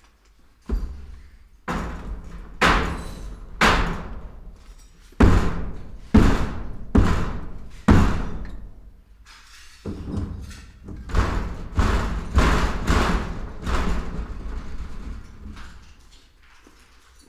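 A run of heavy knocks or thuds, about one a second with a short pause midway, each ringing out in a long echoing tail.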